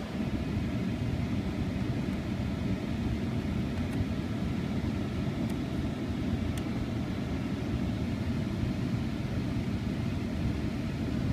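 Steady low rumble inside the cab of a 2014 Ram 1500 pickup with its engine idling. A few faint clicks come from the lower center-dash switches being pressed.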